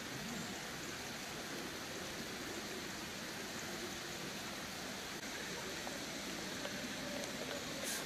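Steady, even outdoor background hiss with no distinct events.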